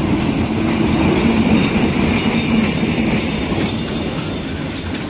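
A Bangladesh Railway diesel locomotive passes close by with its engine drone loudest in the first two or three seconds, then easing as the passenger coaches roll past with wheels clacking over the rail joints.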